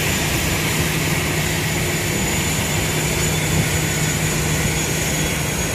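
Steady aircraft engine noise: a constant drone with a low hum and a thin high whine, unchanging in pitch.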